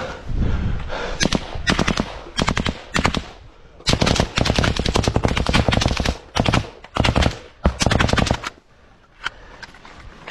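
Kalashnikov-type assault rifle firing on full automatic in bursts: several short bursts, then a long burst of about two seconds starting about four seconds in, then more short bursts. Near the end comes a lull broken by a single shot.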